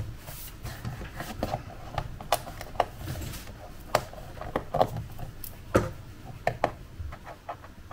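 Irregular light clicks and taps of a small screwdriver and fingertips on a laptop's bottom case, while screws under its rubber feet are backed out and the feet are handled.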